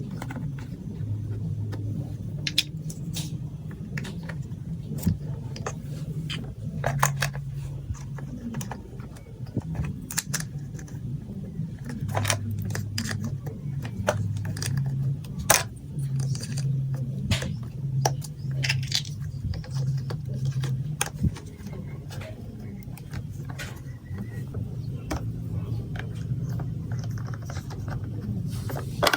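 Plastic marble-run building blocks and marbles clicking and clattering in irregular, sharp taps throughout.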